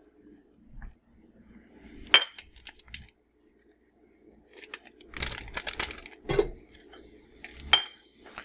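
A stainless steel pot clanks twice on a gas stove's grate, about two seconds in and near the end, each clank ringing briefly. In between, paper crinkles as a stick of butter is unwrapped over the pot.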